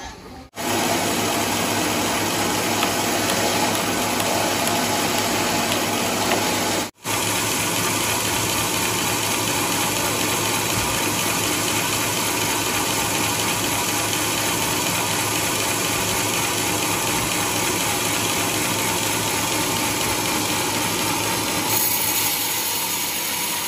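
Large sawmill band saw and its log carriage machinery running with a loud, steady mechanical noise. The sound cuts out briefly twice, just after the start and about seven seconds in.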